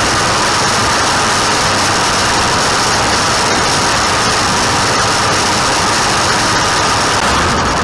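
Farm tractor and hay machinery running steadily and loudly; a high hiss in the noise drops out near the end.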